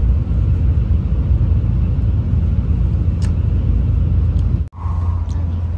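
Shinkansen bullet train running at speed, heard from inside the carriage as a steady low rumble. About three-quarters through, the sound cuts out abruptly and gives way to a steadier low hum with a faint high tone.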